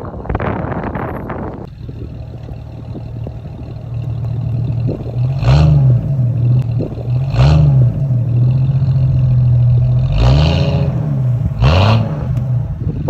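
Jeep Cherokee XJ engine running steadily and blipped four times, each rev rising and falling quickly. A rushing noise fills the first couple of seconds.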